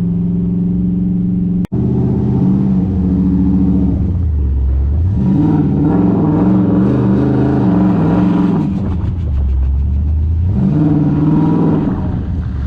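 Turbocharged 6.0-litre V8 of a GMC 2500HD pickup under way, its engine speed rising and falling several times as the driver gets on and off the throttle. The sound drops out for an instant about two seconds in.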